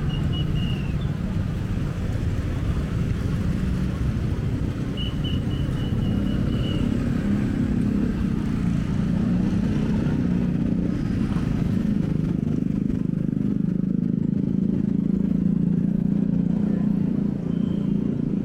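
Street traffic: motorbike and car engines running and passing in a steady low rumble, heavier in the second half. A brief, rapid, high chirping sounds twice in the first half.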